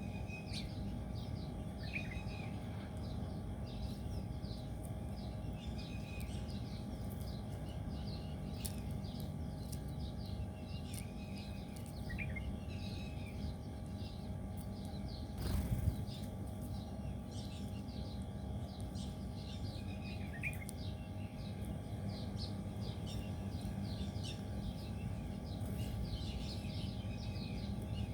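Birds chirping: many short, high chirps throughout, with a lower falling call that recurs every several seconds. Over a steady low background hum, with one brief noisy burst about halfway.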